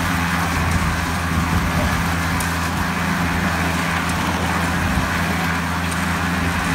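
Drum concrete mixer running: its motor hums steadily while the mix churns in the turning drum, with a few faint ticks.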